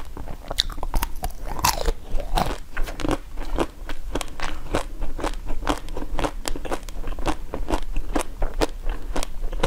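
Close-miked crunching and chewing as a pink-coated strawberry is bitten and eaten, the hard shell cracking in quick sharp crackles several times a second.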